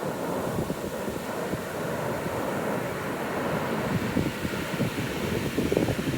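Wind buffeting the microphone over the steady rush of breaking ocean surf, with the gusts growing stronger near the end.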